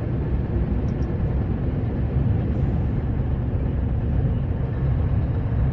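Truck's lowered grader blade scraping over an icy gravel road, used as a brake while the tyres slide. Heard from inside the cab as a steady, unbroken rumble mixed with the engine.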